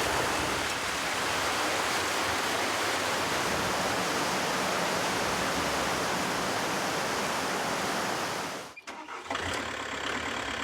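Steady rushing of water at a mill's water wheel and millrace, cutting off abruptly just before the last two seconds; a quieter, steady engine hum follows.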